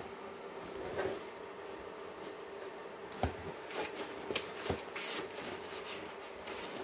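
Paper rustling and soft rubbing as the glossy pages of a printed manual are handled and a page is turned, with a few brief crisp rustles partway through, over a faint steady hum.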